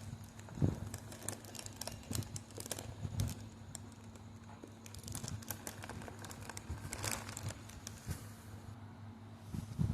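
Packaging being handled and opened by hand: irregular crinkling and rustling with scattered taps and knocks, over a steady low hum.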